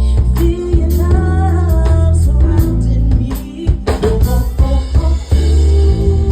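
Live soul-blues band music: a drum kit keeping a beat over a heavy bass line, with a voice singing a melodic line in the first half.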